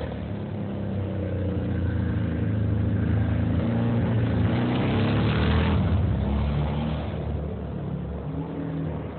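Racing motorcycle engine revving hard as the bike takes a corner, its pitch climbing and dropping as it accelerates. It grows loudest about halfway through, then fades as the bike pulls away.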